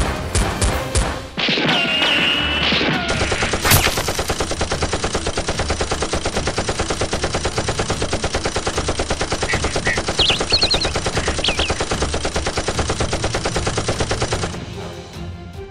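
Gunfire sound effects laid over Nerf blaster fire. A few single shots come in an even rhythm at the start, a wavering high whine follows, then one sharp shot. After that comes a long, even stream of rapid automatic fire lasting about ten seconds, with a few short high whines partway through.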